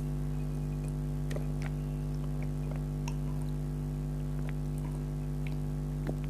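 A steady electrical hum with faint, scattered small clicks and wet mouth sounds of eating soft jelly custard.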